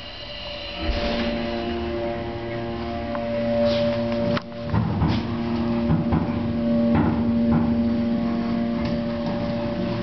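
Elevator car starting off with a click about a second in, then a steady motor whine of several held tones over a low rumble as it travels, with scattered knocks and rattles from the car.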